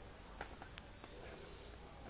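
Faint rustling and crinkling of a sheet of lined notebook paper being handled and folded, with two sharp crackles in the first second, over a low background hiss.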